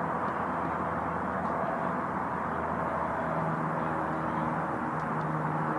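Steady, distant engine rumble and hiss of airfield and traffic noise, with a low hum that grows stronger about three seconds in.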